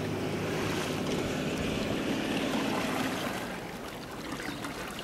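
Steady rush and splash of river water around a wooden dugout canoe as it is paddled, easing off a little after about three and a half seconds.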